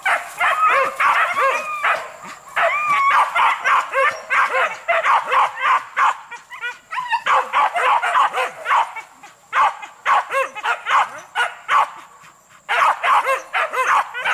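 Several hunting dogs held on leads yelping and barking rapidly, several calls a second, with sliding whines mixed in and a few brief pauses. It is the excited noise of pig-hunting dogs held back from the chase.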